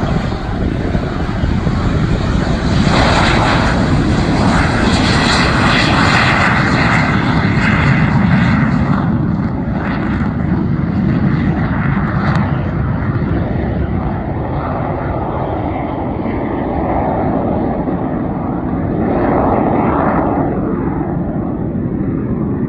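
Jet engine of a small jet aircraft at full power through its takeoff roll, liftoff and climb, a loud roar that is strongest from about three to nine seconds in and then grows duller and fades as the jet climbs away.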